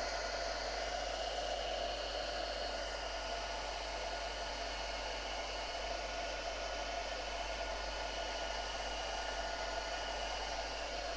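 Craft heat gun blowing steadily, a constant rushing hiss with a faint motor tone, as it melts clear embossing powder.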